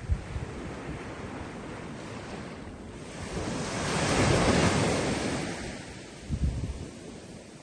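Small waves breaking and washing up a sandy beach, one surge building to its loudest about halfway through and then fading, with wind buffeting the microphone in a few low thumps.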